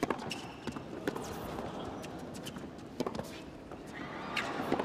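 Tennis rally: a ball struck back and forth by rackets, four or five sharp hits one to two seconds apart, with short shoe squeaks on the hard court over a low crowd murmur.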